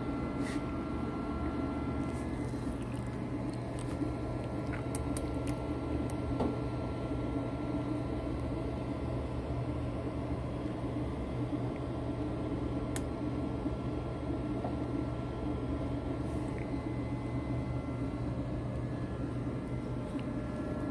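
Fusion3 3D printer running mid-print: a steady hum of its fans and motors, with a thin high tone that breaks off for a couple of seconds near the start and a few faint clicks.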